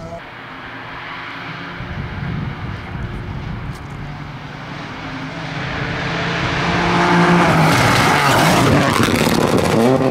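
Rally car engines on a special stage, a car approaching at speed and building to a loud pass near the end, its engine note rising and falling with the gear changes.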